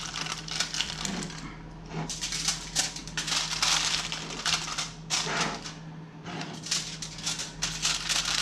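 Aluminium foil crinkling as it is pressed and crimped down over the rims of small ceramic ramekins, in several bursts with short pauses between them.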